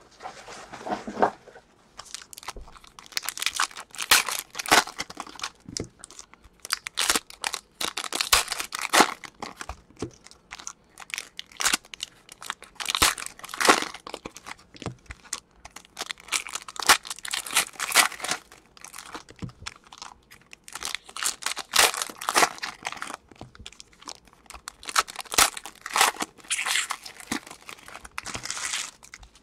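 Shiny foil wrappers of Prizm basketball trading-card packs being torn open and crumpled by hand, crinkling and tearing in quick, irregular spurts.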